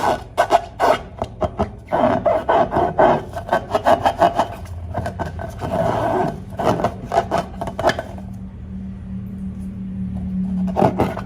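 Slime being worked by hand: a fast run of short, crackly rubbing and squishing strokes that stops about eight seconds in, leaving a low steady hum.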